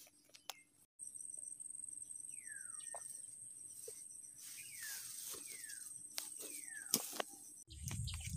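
Steady high-pitched insect trill, cricket-like, starting about a second in, with several short downward-sliding bird whistles over it and a few light clicks. A low rumble comes in near the end.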